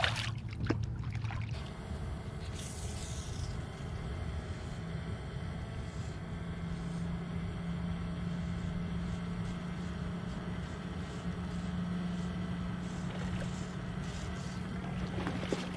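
A small boat's motor runs steadily, a low hum whose pitch sits a little higher from about six seconds in. Water splashes against the side in the first second as a redfish is let go over the gunwale.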